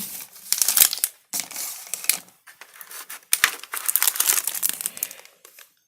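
Packaging crinkling and rustling as it is handled, in several bursts of crackly noise with brief pauses between them.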